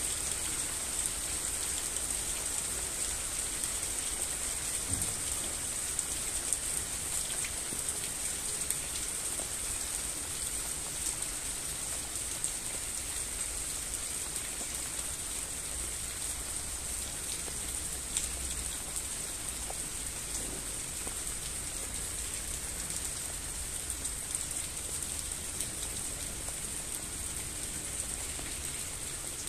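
Steady rain falling: an even hiss with scattered faint drop ticks.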